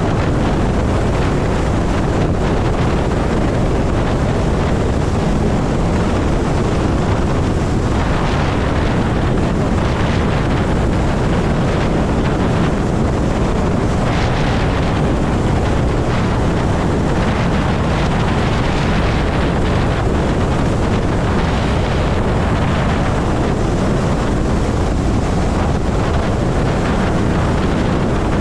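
Wind buffeting the microphone at highway speed, about 65 mph on an electric motorcycle: a loud, steady rush with a heavy low rumble and no engine note, swelling briefly a few times.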